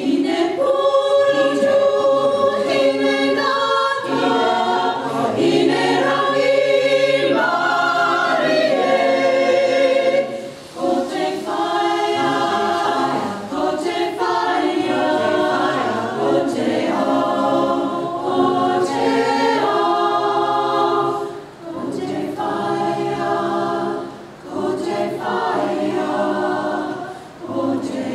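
Mixed-voice community choir singing a slow song in harmony, with brief breaks between phrases.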